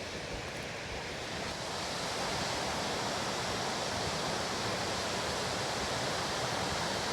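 Steady rush of running or falling water, such as a waterfall or cascade, growing a little louder about two seconds in.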